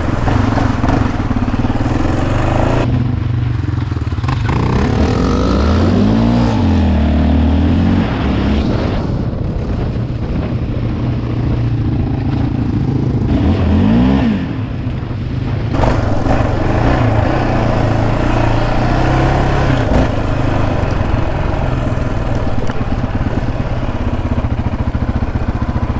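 Yamaha Raptor 700R ATV's single-cylinder engine with an aftermarket exhaust, running and revving up and down on a dirt trail. The sound turns duller about three seconds in and opens up again about sixteen seconds in.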